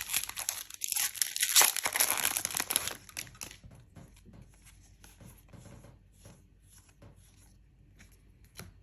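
A Disney Lorcana booster pack wrapper torn open and crinkled, loud for about the first three seconds. Then fainter scattered rustles and ticks as the cards inside are handled.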